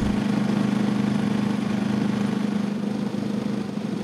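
A sailboat's inboard engine running steadily while motoring under way, a constant drone.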